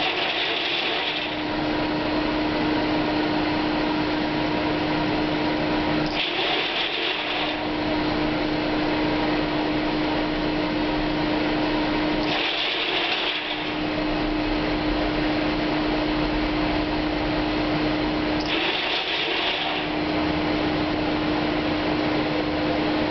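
Corn grain dryer running: steady blower-like machine noise with a constant hum. About every six seconds, a short hissing rush cuts in while the hum briefly drops, four times in all.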